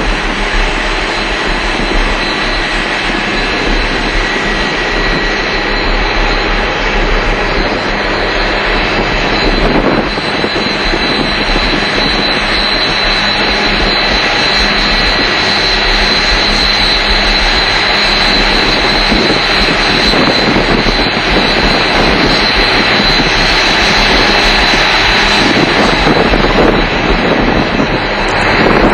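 Combine harvester running: a loud, steady drone of engine and threshing machinery with a thin high whine over it.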